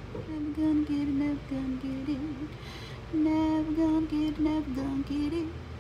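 A woman humming a wordless tune to herself, in two phrases with a short break about halfway.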